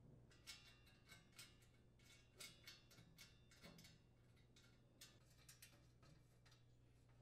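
Faint, irregular small metallic clicks and ticks of a wing nut being spun onto its stud by hand and the sheet-metal broil burner shield being handled, over a low steady hum.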